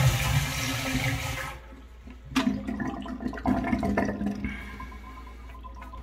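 Flushmate pressure-assist toilet flushing with a loud rush of water and air that cuts off about a second and a half in, followed by quieter knocks. The flush is made with the water supply shut off, to relieve the tank's pressure.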